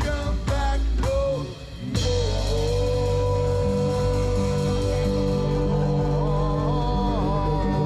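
Live band of drum kit, double bass and singers playing. After a cymbal crash about two seconds in, a singer holds one long note over the drums and bass until near the end.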